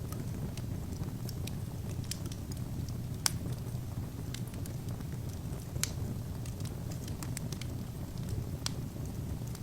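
Wood fire burning in an open fireplace: a steady low rumble of the flames with irregular sharp crackles and pops of the burning logs, two louder pops about three and six seconds in.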